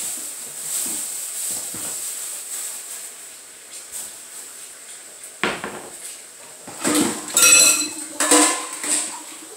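Kitchen tap running into a stainless steel sink while vegetables are rinsed, then a knock and a few loud, ringing clanks of metal dishware in the sink in the second half.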